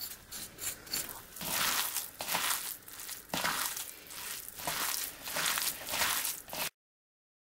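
A hand kneading minced pork filling mixed with chopped gelatin jelly and potato starch in a bowl: wet, squelching squeezes about once a second. It stops suddenly near the end.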